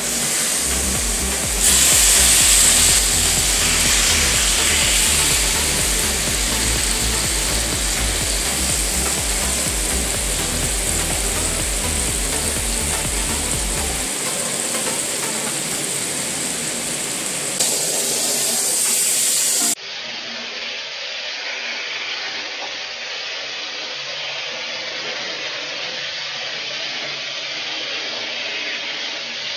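Seasoned chicken breasts sizzling as they fry in hot cooking oil in a frying pan. The sizzle drops to a quieter level about twenty seconds in.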